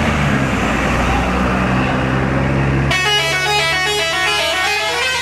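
Tour bus engine running with a low rumble. About three seconds in, a 'telolet' multi-tone musical horn starts playing a quick tune of jumping notes.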